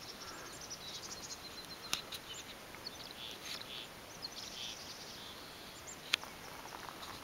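Quiet outdoor ambience with faint, short, high bird chirps in the middle, and two sharp clicks about two and six seconds in.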